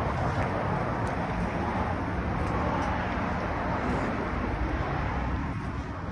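Steady outdoor traffic noise with a low rumble, easing slightly near the end.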